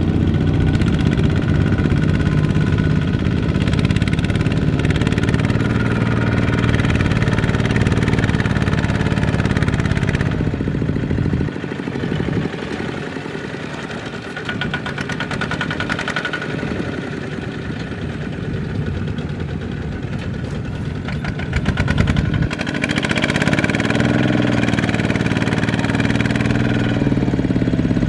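Kubota walking tractors' single-cylinder diesel engines running steadily under load, hauling trailers of rice sacks through a muddy field. The engine sound falls away about eleven seconds in and picks up again about ten seconds later.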